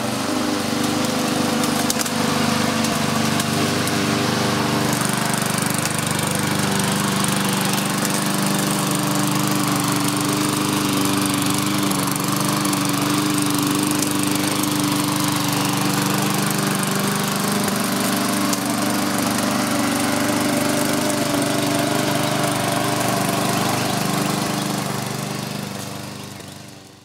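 Walk-behind rotary push mower's small gasoline engine running steadily as it mows dry, dusty grass. It fades out near the end.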